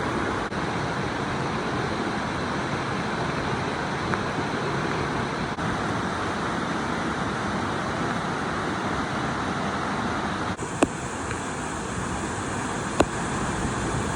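Stream water flowing steadily, an even rush of running water, with two sharp clicks in the last few seconds.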